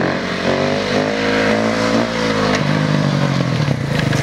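Dirt bike engine revving, its pitch climbing through the first second, holding, then dropping about two and a half seconds in and running on steadily at a lower pitch.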